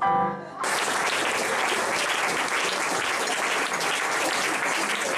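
The last notes of a piano-accompanied song, then audience applause breaking out about half a second in and carrying on.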